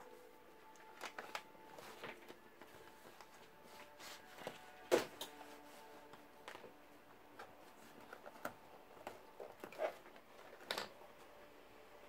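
Scattered desk-handling noises: about a dozen short knocks and brushes of an arm and hand against a paper pad and the desktop, the loudest about five seconds in and another near eleven seconds. A faint steady hum sits underneath.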